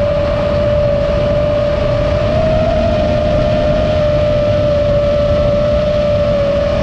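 Nazgul5 5-inch FPV quadcopter on a 6S battery, its brushless motors whining at a nearly steady pitch in flight. Heavy wind noise on the onboard GoPro's microphone runs underneath.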